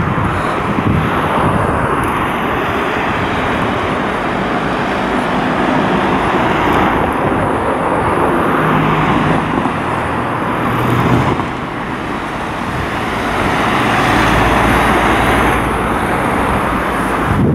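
Street traffic: cars passing on the road, the noise swelling and fading as each goes by, with a low engine hum at times.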